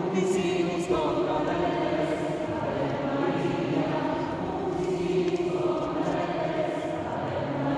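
Choir singing slow, sustained chant-like notes.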